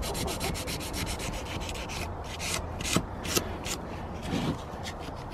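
Rapid hand scrubbing of a dirty steel secateur blade with a small abrasive, scraping strokes several times a second that thin out to a few separate strokes in the middle. The grime is being rubbed off the blade of a pair of anvil secateurs before it is sharpened.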